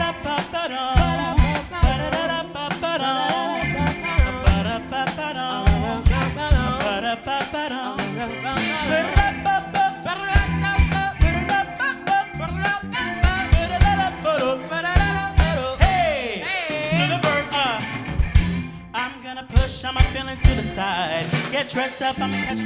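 Live band playing pop-gospel-jazz fusion: drum kit and bass keep a steady groove under a wavering melodic lead, which slides down in pitch about sixteen seconds in.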